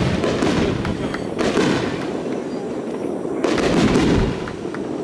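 Aerial firework shells bursting: sharp bangs about a second and a half in and again about three and a half seconds in, over a continuous low rumble of bursts.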